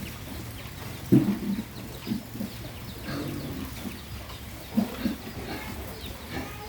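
Pigs grunting while being fed: a run of short, low grunts, the loudest about a second in and two more close together near the end.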